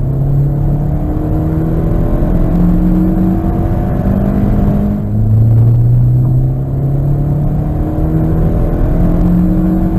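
Ford Fiesta ST's turbocharged 1.6 EcoBoost four-cylinder pulling hard at full throttle in third gear, its note climbing steadily with the revs, with the symposer delete kit fitted. About five seconds in the note drops back and climbs again as a second pull begins.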